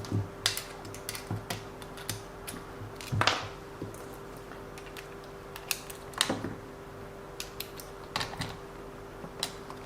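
Scattered light clicks and taps of small tools on the wheel nut of a WLToys 144001 RC car as the over-tight wheel is loosened, with two louder knocks about three and six seconds in. A faint steady hum runs underneath.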